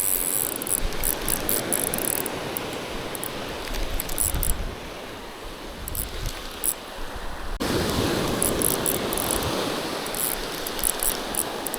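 Fishing reel being cranked in while fighting a fish, its mechanism clicking in quick repeated runs over a steady rushing noise.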